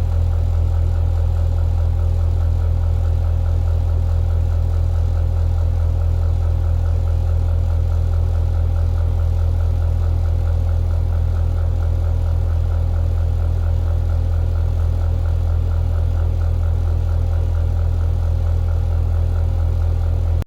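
Ventilation fan running with an abnormal noise: a loud, steady low drone with a fast, even rattling pulse in it, the strange sound its owner finds wrong with the fan.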